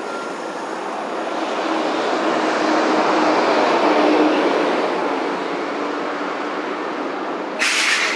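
Toden Arakawa Line tram passing close by: the rumble of its wheels on the rails, with a steady hum, swells to a peak about three to four seconds in and fades as it pulls away. A short, loud hiss near the end.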